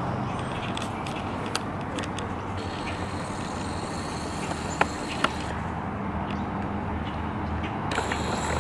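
Steady outdoor road-traffic noise with a faint engine hum, and two sharp clicks close together about five seconds in.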